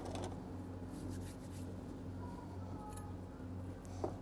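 Faint scraping and cutting of a chef's knife slicing a cured gravlax salmon loin, a few strokes about a second in and a light click near the end, over a low steady hum.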